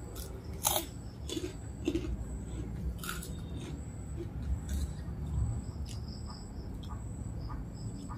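Close-up eating sounds: chewing and wet mouth smacks while eating rice and orek tempe by hand, with a few sharp clicks in the first half.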